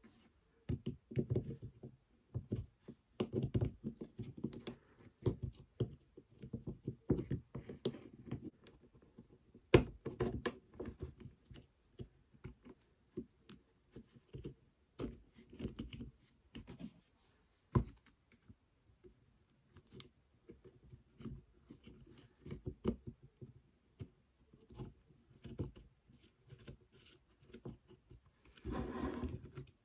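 Hands fitting cordless-drill parts into the plastic housing: irregular clicks, taps and small knocks of plastic against plastic and metal, with a couple of sharper knocks about ten and eighteen seconds in. A brief scraping noise near the end.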